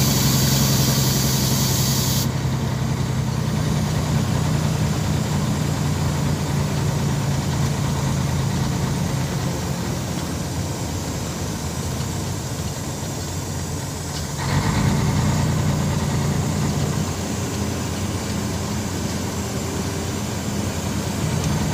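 Vehicle engine running steadily with road noise, heard from inside the cab while driving on the highway. The sound steps suddenly louder about fourteen seconds in.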